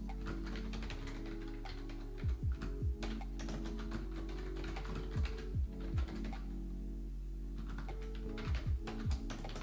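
Typing on a computer keyboard, a run of quick key clicks, over background music with held low tones and deep bass thumps in groups of three.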